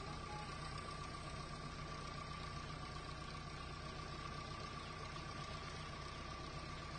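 A steady engine hum with a constant high-pitched whine.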